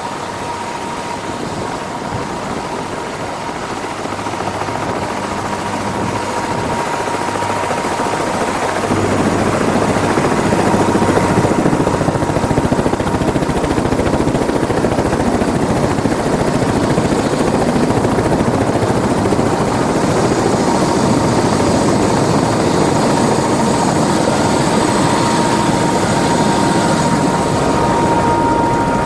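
Helicopter running on the ground with its rotor turning: a steady high turbine whine over a broad rushing noise. It grows louder over the first ten seconds as the aircraft is approached, then holds steady up close.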